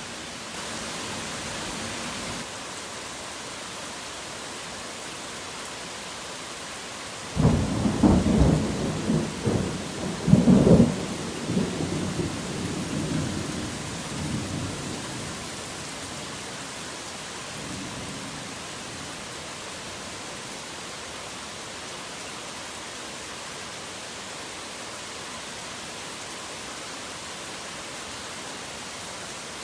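Steady heavy rain throughout, with a thunderclap breaking in about seven seconds in. It peaks loudly again a few seconds later, then rumbles away over several seconds, with a faint last rumble a little after.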